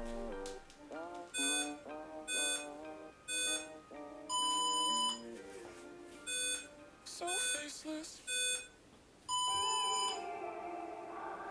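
Interval-timer countdown beeps over background electronic music: three short beeps and then a longer one, twice over, signalling the switch between exercise intervals.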